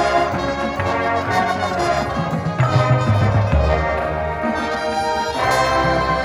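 High school marching band's brass section playing held chords, with heavy low brass notes coming in about halfway through.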